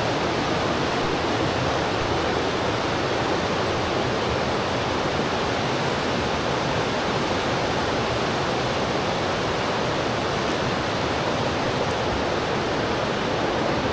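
Steady rushing of a river's flowing water, an even hiss with no breaks.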